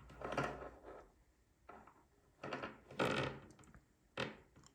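Fishing pliers being handled: a handful of short clacks and scrapes, the loudest about three seconds in.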